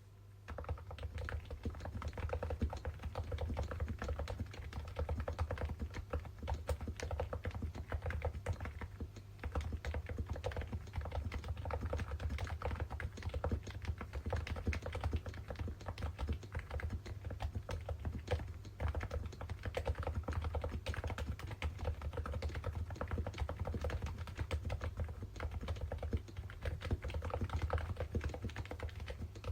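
Continuous typing on a Topre Realforce R2 keyboard with 55 g rubber domes, lubed sliders and PPS keycaps: a dense, unbroken stream of key strokes, over a steady low hum.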